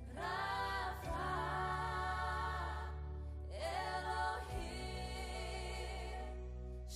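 Background music with singing: a sung melody over a steady low accompaniment, in phrases that break off about three seconds in and again near the end.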